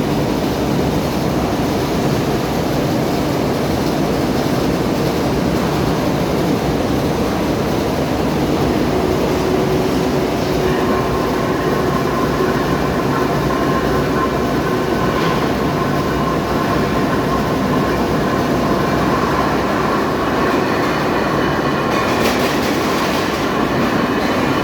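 Heavy lathe turning a TMT rolling-mill roll: a steady, loud mechanical rumble of the machine running and the tool cutting the roll. A high ringing tone joins about eleven seconds in and holds.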